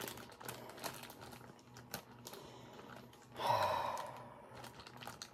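Light clicks and taps of makeup brushes and small plastic containers being handled. About three and a half seconds in there is a short sigh-like breath.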